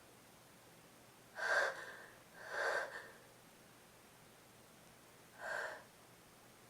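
A person with a cold gasping in three breaths, two close together and a third a few seconds later and softer: the hitching in-breaths of a sneeze building up that does not come.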